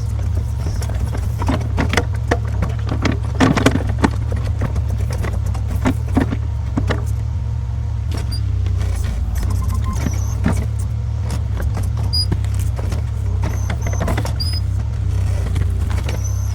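New Holland skid steer's engine running steadily, with scattered knocks and clanks as the grapple works at a stump; the knocks are thickest in the first half. A few short bird chirps come in the second half.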